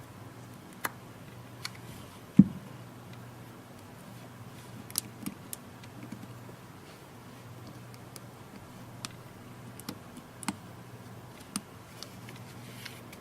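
Small plastic clicks and taps of tablet parts being handled and pressed into place, with one louder knock a couple of seconds in, over a faint steady hum.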